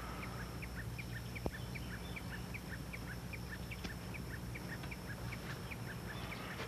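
Steady rhythmic chirping of a small calling animal, short chirps about four a second alternating between a higher and a lower pitch, over a low steady hum. A single sharp click about a second and a half in.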